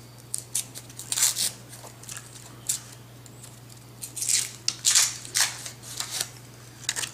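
Wrapper of a coin roll of silver half dollars being torn and crinkled open by hand, in irregular sharp crackles that come thickest about a second in and again around four to five seconds in.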